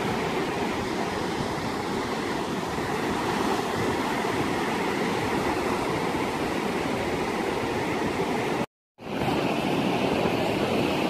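Ocean surf breaking over rocks and washing up a sandy beach: a steady rush of water. The sound cuts out for a moment about nine seconds in, then resumes.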